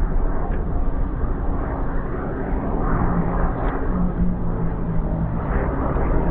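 Large-scale RC model aircraft radial engine running, a loud, dense low rumble whose pitch wavers slightly.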